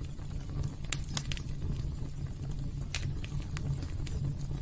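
Cinematic sound effects for an animated metal-and-sparks logo: a steady low rumble with scattered sharp clicks and crackles.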